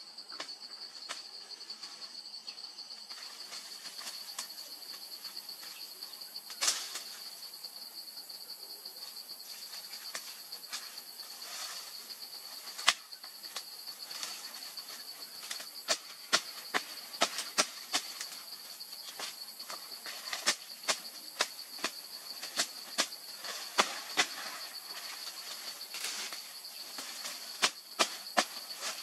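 Steady high-pitched chirring of forest insects, with sharp cracks and snaps of twigs and stems as a person pushes through the undergrowth, scattered at first and coming more often from about halfway through.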